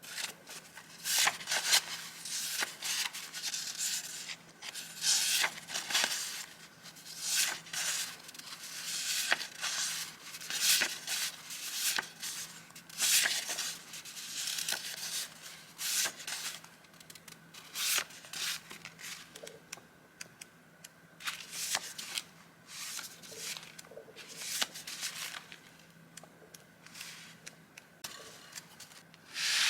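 Paper rustling and crinkling as vintage journaling papers and stickers are handled, in many short, irregular bursts.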